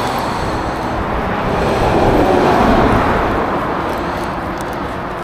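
Road traffic noise: a passing vehicle's tyres and engine swell to a peak about two to three seconds in, then fade.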